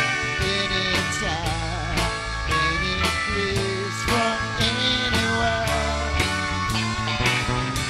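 Live country-rock band playing an instrumental passage: electric guitars and pedal steel guitar over bass and a steady drumbeat, with some sliding steel notes.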